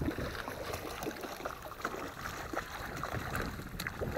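A hooked fish splashing at the surface close to the bank as it is reeled in: a string of small, irregular splashes.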